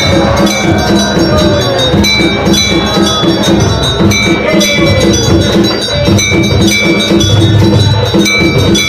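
Temple puja music: bells ringing over a steady drum beat of about four strokes a second, with a gliding melody above them, as accompanies the aarti at a Hindu shrine.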